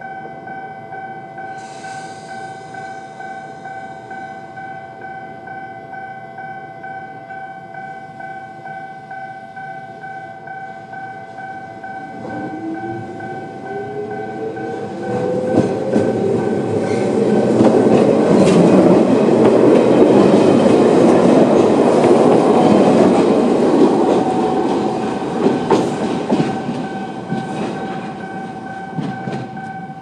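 Electronic level-crossing bell of the Mizuma type, pitched high, ringing in even pulses while a Toyama Chihō Railway 10030-series electric train passes. The train comes in with a rising whine from about twelve seconds in, then its wheels run through loud and clattering over the rail joints. The noise fades near the end while the bell keeps ringing.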